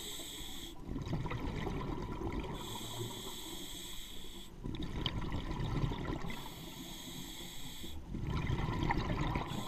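Scuba diver breathing through a regulator underwater: a hissing inhalation through the demand valve alternates with a rumbling burst of exhaled bubbles, a breath about every four seconds.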